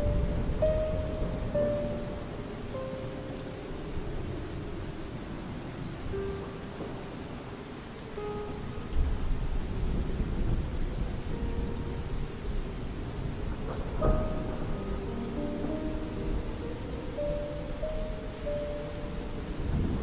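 Steady rain with deep rumbling thunder that grows stronger about halfway through, and one sharp crack near the two-thirds mark. Soft, slow piano notes sound over the rain.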